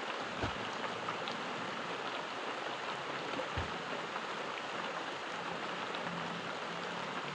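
Steady rain falling, an even hiss. Two dull low thumps cut through it, about half a second in and again about three and a half seconds in.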